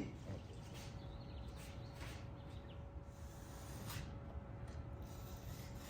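Faint background noise: a steady low rumble with a thin steady hum and a few soft clicks or scrapes.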